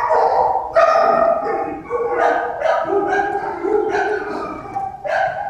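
Shelter dogs barking and howling in the kennels, calls following closely one after another.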